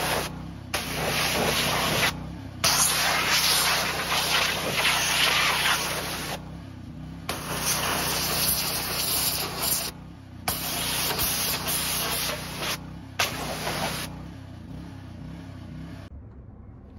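Pressure washer spraying water onto a car's door panel and floor. The spray comes in spurts, broken by several short pauses when the trigger is let go, while a steady low hum runs on underneath. It is quieter for the last few seconds.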